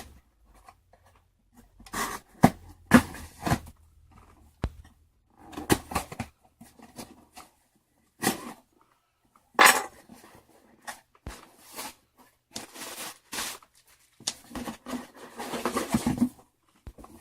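A game controller's retail box and packaging being opened and handled: irregular bursts of rustling and scraping with a few sharp clicks.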